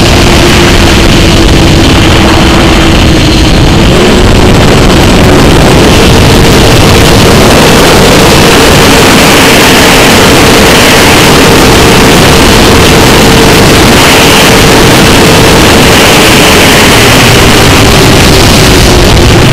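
Onboard audio of an FPV model aircraft: the electric motor and propeller whine as one steady tone that steps up in pitch about six seconds in and drops back near the end, under heavy wind rush on the microphone. Very loud throughout.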